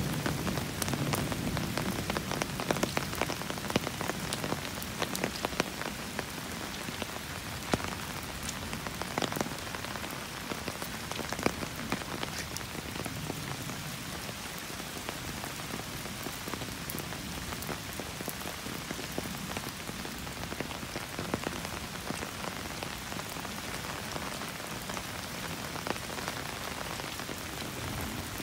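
Steady rain falling on wet ground and puddles: an even hiss dotted with sharp drop ticks, which are thicker in the first dozen seconds or so.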